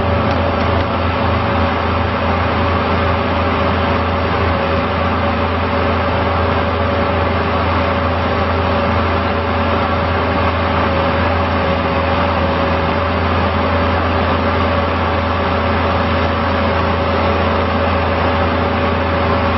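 Engine of a Toro Dingo compact loader running steadily, with a constant high whine over a low hum, while it drives the hydraulic backhoe attachment.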